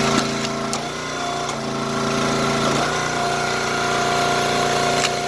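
Gas engine of a 22-ton hydraulic log splitter running steadily, its note shifting a couple of times as the hydraulic load changes, with a few sharp clicks.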